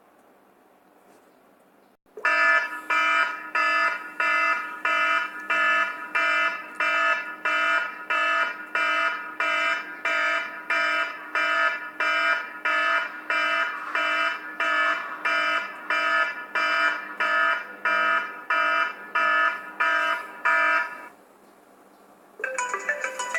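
iPhone ringtone playing: an alarm-like electronic beep that repeats about twice a second and stops after about 19 seconds. Near the end a different, chiming ringtone begins.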